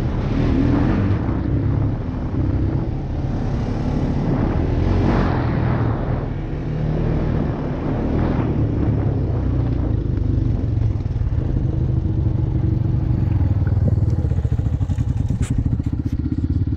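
ATV engine running steadily while riding, with a few swells of rushing noise in the first half; near the end the engine settles into a slower, even pulsing, and a sharp click sounds.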